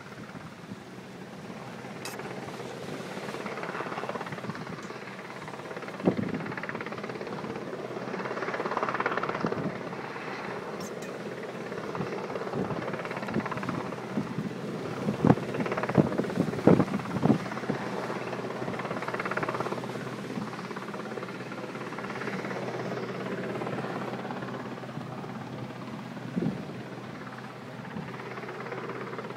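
Distant Westland Sea King helicopter in flight over the sea, a steady rotor and turbine hum that swells and fades. A few sharp thumps come near the middle, with wind on the microphone.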